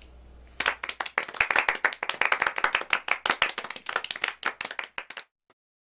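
Applause from a small group: many distinct hand claps starting about half a second in and cutting off abruptly near the end.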